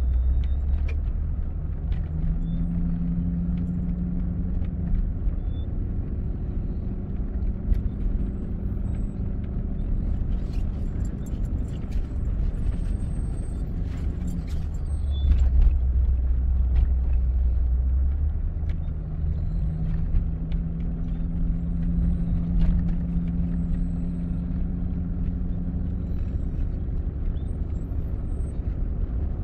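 Ford F-250 pickup heard from inside the cab, cruising slowly: a steady low rumble of engine and tyres on rough patched asphalt, with an engine drone that fades in and out. A few light clicks and rattles come near the middle.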